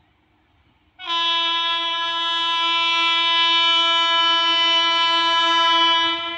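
Approaching train's locomotive horn sounding one long steady blast of about five seconds. It starts abruptly about a second in and cuts off near the end.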